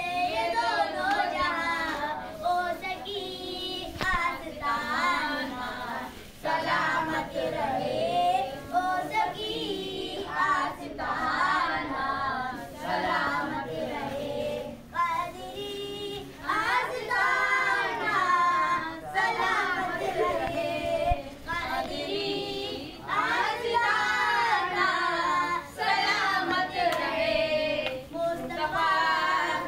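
A boy singing a devotional song in long, wavering phrases with short pauses for breath between them.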